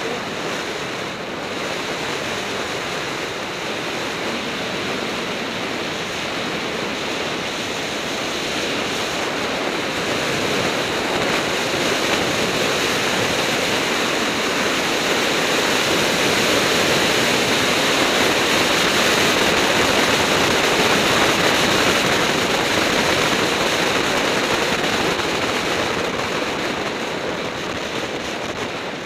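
Steady rush of wind buffeting a camera microphone on a fast road-bike descent. The air noise grows louder midway and eases again near the end.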